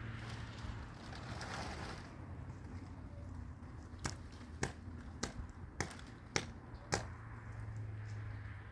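Six sharp clicks or knocks in an even series, about one every 0.6 seconds, over a steady low hum.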